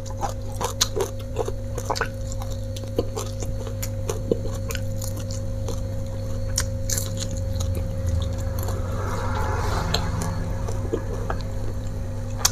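Close-miked chewing and lip-smacking of a person eating fried fish, sambal and raw greens by hand, with many short sharp smacks and clicks. A steady low hum runs underneath.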